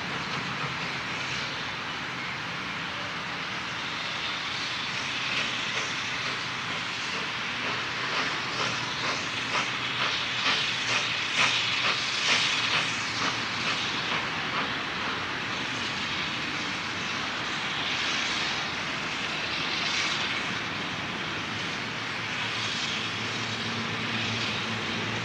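Narrow-gauge steam locomotive working a train: a run of exhaust chuffs over a steady hiss of steam, the beats growing louder and clearer through the middle and fading again.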